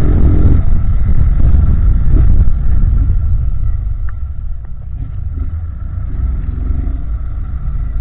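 Honda CG 160 Titan single-cylinder motorcycle running on the move, a loud, dense low rumble that eases off about three seconds in.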